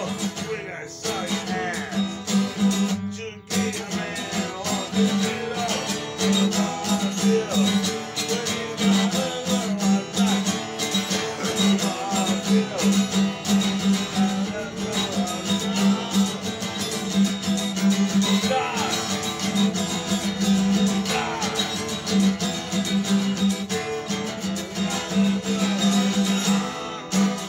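Acoustic guitar played steadily, strummed in a repeating rhythm, with a brief break about three seconds in.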